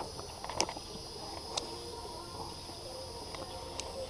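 A steady high insect chorus of trilling, with a few short, sharp clicks scattered through it; the loudest click comes right at the start.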